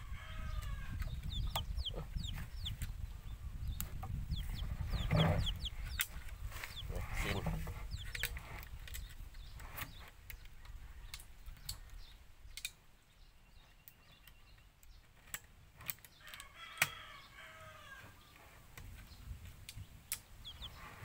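Chickens clucking and calling in the background, with a rooster-like call at about sixteen seconds, small birds chirping, and scattered sharp clicks as a metal sprocket is handled against a plastic water jug. A low rumble runs through the first half and then fades.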